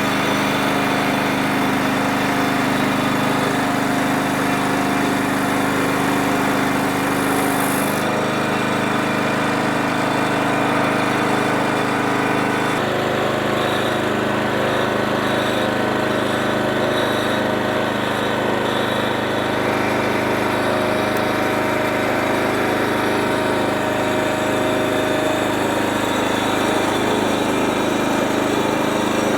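Sawmill engine running steadily while the mill cuts through a hard black walnut log, its tone shifting slightly about 8 seconds and again about 13 seconds in.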